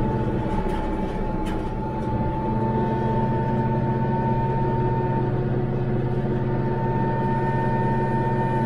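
Branson 5520CH diesel tractor running steadily at PTO speed, driving a Titan rotary cutter (brush hog) through tall grass and brush: a steady engine and drive-line drone with a constant high whine over it, and a couple of brief knocks about a second and a half in.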